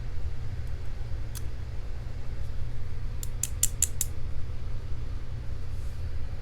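Small sharp metallic clicks from lock parts being handled with tweezers while a padlock is disassembled: one click about a second in, then a quick run of five near the middle, over a steady low hum.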